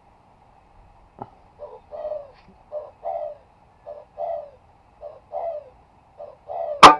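A dove cooing in a steady string of short notes, about two a second. Just before the end comes a single sharp shot from an air rifle firing a 15.4-grain slug, the loudest sound.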